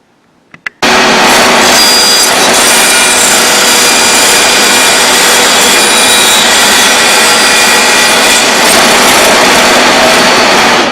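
Bandsaw cutting slots into a wooden workpiece: a loud, steady hiss of the blade through the wood, starting abruptly about a second in, just after two short clicks.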